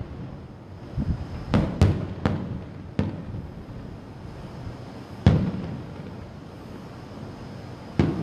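Aerial firework shells bursting: a quick run of four or five bangs between about one and three seconds in, another about five seconds in, and one more near the end, each trailing off in an echo.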